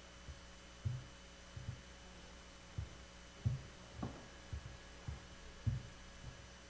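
Faint steady electrical hum with about ten soft, irregularly spaced low thumps.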